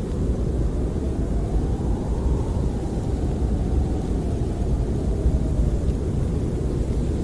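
Snowstorm wind buffeting a camper, heard from inside as a steady low rumble, with a faint moaning whistle that rises and then falls in pitch a couple of seconds in.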